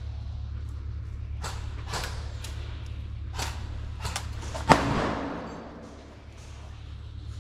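A few scattered sharp clicks or knocks, then one loud sharp bang about two-thirds of the way in that dies away over about a second, over a steady low hum.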